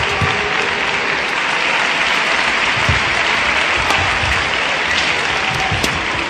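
Spectators in a badminton arena applauding, a dense, steady clatter of many hands clapping.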